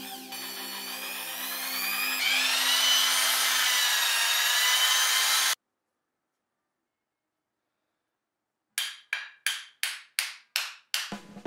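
Bosch electric drill drilling a hole through a wooden knife handle, its motor whine rising as it speeds up and again about two seconds in, then stopping abruptly about halfway through. After a few seconds of silence comes a quick run of about ten sharp taps, roughly four a second.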